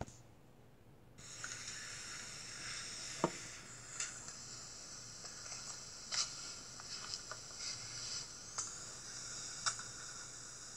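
Faint steady hiss with a few scattered soft clicks and rustles, like small handling noises on a phone's microphone.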